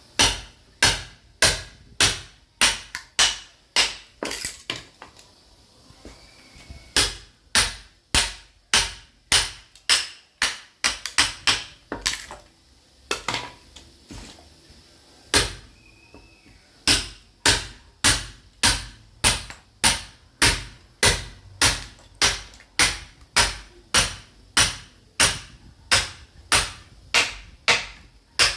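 Sledgehammer striking a steel chisel driven into a log of caviúna wood to split it for firewood: sharp, ringing blows about two a second, with a few short pauses between runs of strikes.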